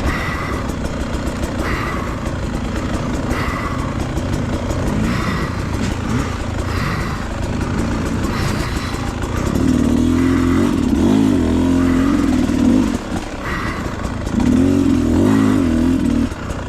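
Dirt bike engine running at a steady low speed, then revved up and held for two stretches of a few seconds each, its note wavering, about ten and fifteen seconds in.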